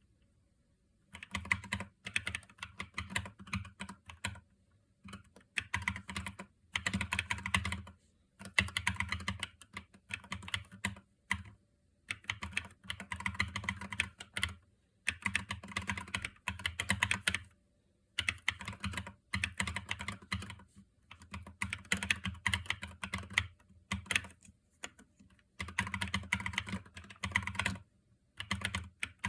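Typing on a YUNZII KC68 mechanical keyboard with lubed Akko V3 Cream Yellow Pro linear switches and PBT XDA-profile keycaps, damped with silent-ring, foam and tape mods. Fast keystrokes come in runs of one to three seconds, with short pauses between them.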